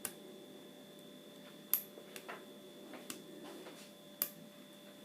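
A lock pick working the pins of a modified FAB challenge lock under tension: sparse, irregular sharp metallic clicks, the loudest about 1.7 s and 4.2 s in, over a faint steady high tone.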